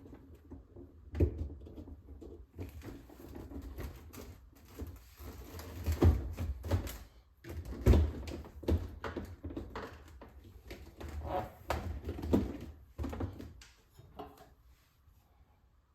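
Refrigerator shelves and drawers being put back in: irregular knocks, thuds and scraping, with the loudest knocks about a second in, around six and eight seconds, and near twelve seconds.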